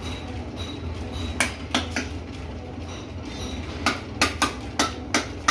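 Metal striking metal: sharp, ringing clinks, three in quick succession about a second and a half in, then about six more in the second half. A steady low hum runs underneath.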